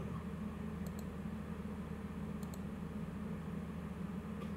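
Steady low hum of microphone room noise, with a few faint double clicks of a computer mouse, three pairs spaced about a second and a half apart, as slides are clicked through.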